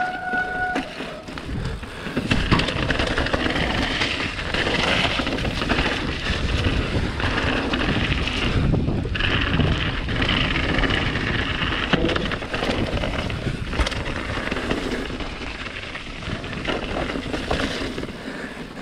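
Mountain bike running fast down a rough trail: tyres and bike rattling over stones and roots, with a few sharper knocks, under steady wind rushing over the microphone.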